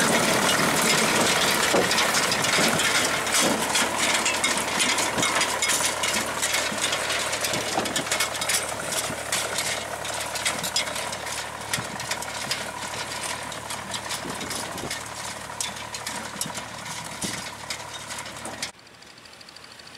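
Vintage tractor engine running, with a dense rapid clatter over it, gradually getting quieter. Near the end the sound cuts off abruptly to a much quieter background.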